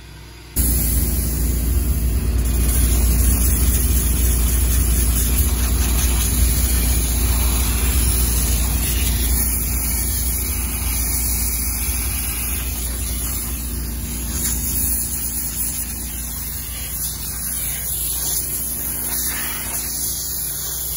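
Steam cleaner running, its nozzle jetting steam with a steady hiss over a low machine hum; it starts abruptly about half a second in.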